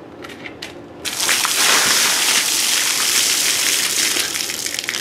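A bucket of ice water dumped over a man's head: a sudden loud gush of pouring, splattering water beginning about a second in, running on steadily and starting to ease off near the end.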